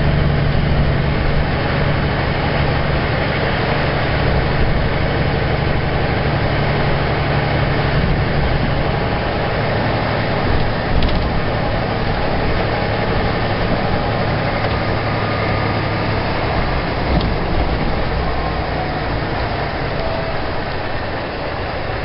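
Heavy diesel truck engine running steadily, with a low hum that weakens about nine seconds in.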